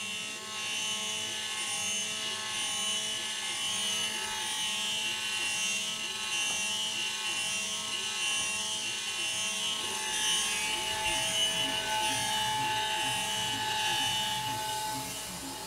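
CNC router spindle helically milling holes in cast aluminium with a 4 mm end mill: a steady, high-pitched cutting whine over a lower tone that rises and falls about twice a second as the cutter circles each hole. The cutter is re-chewing its own chips, a sound the machinist doesn't like.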